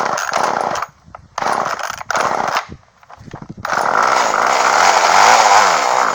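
Poulan Micro Pro Super XXV Deluxe two-stroke chainsaw being pulled over on its recoil starter in several short bursts, with a longer, louder burst near the end. It does not settle into running, because it is not drawing fuel: the owner blames the fuel line.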